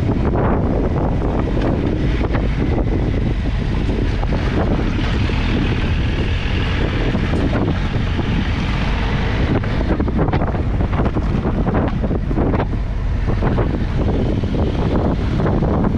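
Wind buffeting the camera microphone over a Triumph Tiger 1200 XCA's three-cylinder engine, riding at a steady pace.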